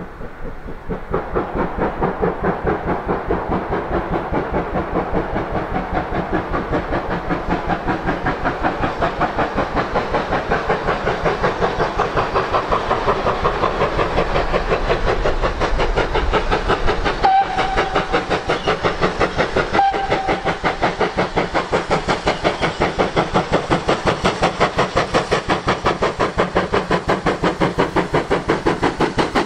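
GWR 56xx class 0-6-2T steam tank locomotive No. 5619 working hard uphill with a passenger train. Its exhaust beats come quick and regular and get louder as it draws near. Twice, a little past halfway, the whistle gives a short toot.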